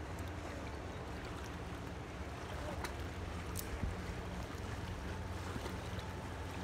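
Small lake waves lapping against a concrete seawall over a steady low hum, with a couple of faint ticks about three seconds in.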